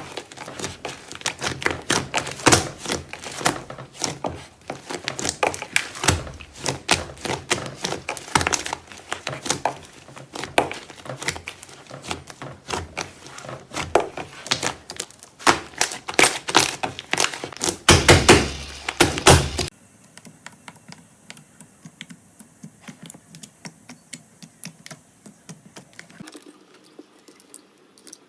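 Slime being squeezed and poked by hand: dense, loud clicking and crackling pops. About two-thirds of the way in it gives way to fainter, sparser clicks.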